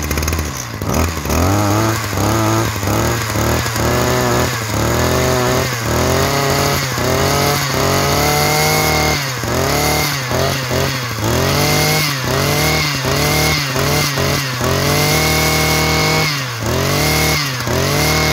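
Ryobi 23cc two-stroke brush cutter engine with a chainsaw-type carburettor, running and being revved over and over. It revs up quickly from idle in many short blips, with a few longer held revs near the middle and the end.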